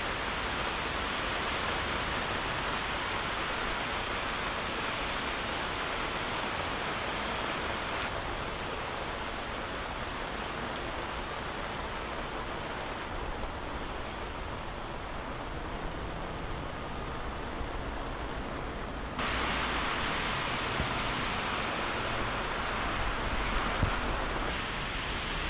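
Heavy rain pouring down onto pavement, a steady hiss that changes abruptly in level and tone about 8 and 19 seconds in.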